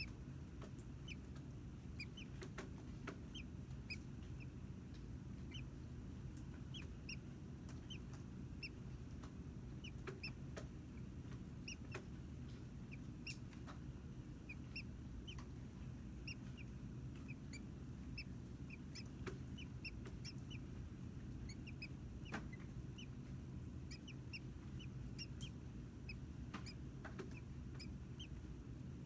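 Nestling American robins, about a day old, making faint high-pitched peeps: short, irregular, and scattered all through. Under them runs a steady low hum, and a few sharp clicks stand out.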